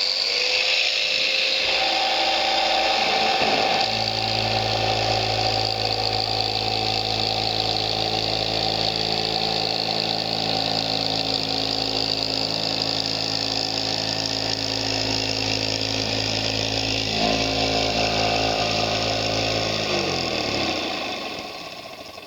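A motor-driven power tool starts up abruptly and runs steadily with a loud whine and hiss. Its pitch settles about four seconds in, then it winds down near the end.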